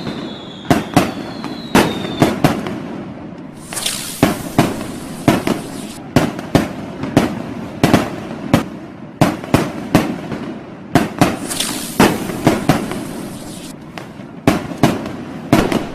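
Fireworks and firecrackers going off in a dense, irregular string of sharp bangs, about two a second. A whistle falls slightly in pitch over the first two seconds, and crackling hiss swells up about four seconds in and again around twelve seconds.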